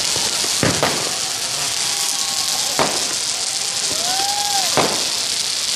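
Ground fireworks fountain (a Diwali flower pot) spraying sparks with a loud, steady hiss. Three sharp firecracker cracks go off, about a second, three seconds and five seconds in.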